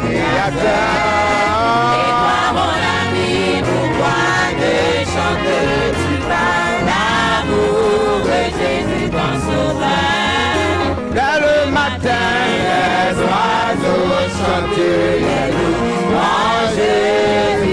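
Live gospel music: men singing into microphones, amplified, over a church band with brass instruments, loud and continuous.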